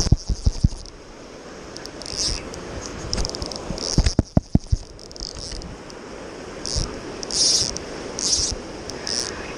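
Bumps and knocks from a body-worn camera being handled, loudest at the start and again around four seconds in, over the steady rush of river rapids. Short high-pitched chirps repeat about every second.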